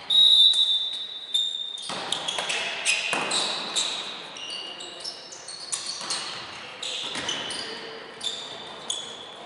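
A referee's whistle blows once for the serve, about a second and a half long, then a volleyball rally: sneakers squeaking on the hardwood hall floor and the sharp smacks of the ball being served and played, echoing in the large gym.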